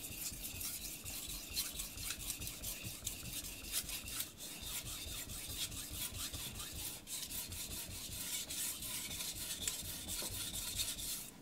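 An aogami carbon steel bunka knife being sharpened on a soaked King 1000 whetstone: quick, repeated back-and-forth strokes of steel scraping across the wet stone.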